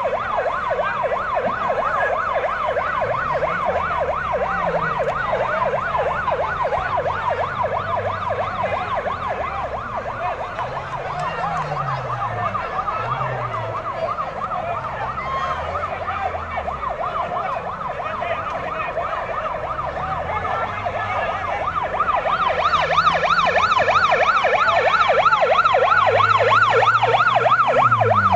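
Ambulance siren sounding a fast up-and-down yelp, with a vehicle engine running underneath, its pitch rising and falling. The siren grows louder about three-quarters of the way through.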